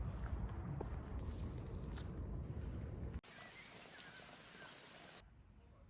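Outdoor ambience of insects trilling steadily and high-pitched, over a low rumble in the first three seconds. The sound changes abruptly about three seconds in, with a few short chirps, and again about five seconds in, where it becomes quieter.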